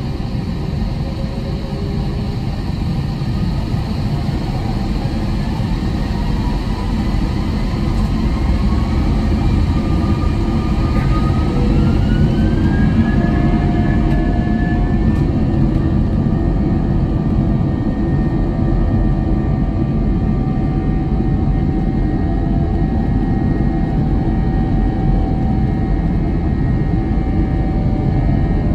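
Jet engines of an Airbus A321 heard from inside the cabin, a steady low rumble with whining tones, as the airliner taxis onto the runway. About ten seconds in, one whine climbs in pitch and the sound grows a little louder as thrust is added, then holds steady.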